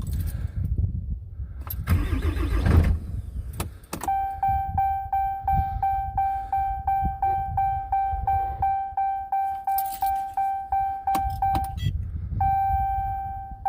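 Dodge pickup's diesel engine cranking in extreme cold, turning over strongly and trying to catch without running. It is the sign of a cold-soaked diesel that was left unplugged and whose glow plugs are not coming on. From about four seconds in, the dashboard warning chime dings about three times a second over a low rumble. The chime stops briefly near the end, then starts again.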